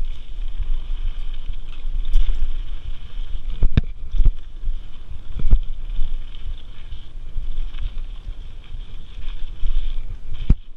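Mountain bike rolling fast over a dirt singletrack: a rough low rumble from tyres and frame with wind on the microphone, and a few sharp knocks as the bike jolts over bumps, the loudest about four and five and a half seconds in and again near the end.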